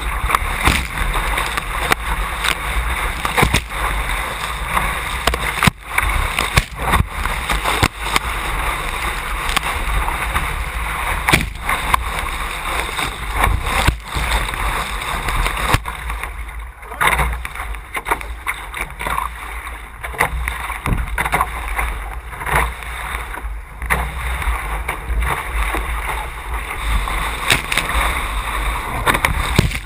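Water rushing and splashing along a Boyer Mk4 A Class catamaran's hull as it sails upwind at speed, with wind buffeting the microphone. Frequent sharp hits of spray and chop break through the steady rush.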